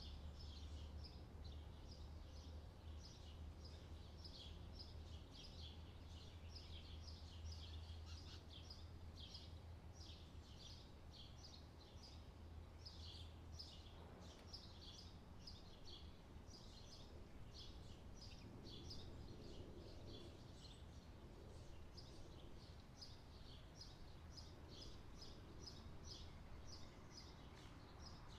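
Faint springtime birdsong: small birds chirping continuously in quick, short, high notes over a low steady hum.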